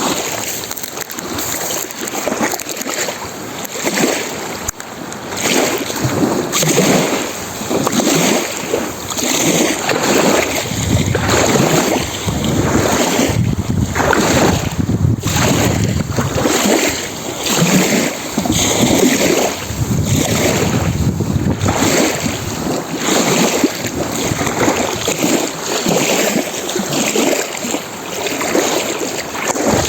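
Lake waves washing and breaking on the shore, one surge after another, mixed with wind gusting on the microphone.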